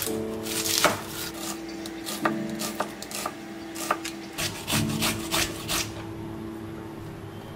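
A freshly sharpened chef's knife slicing an onion on a plastic cutting board: a string of short, sharp cuts. Then a few strokes of a carrot rubbed on a stainless steel hand grater.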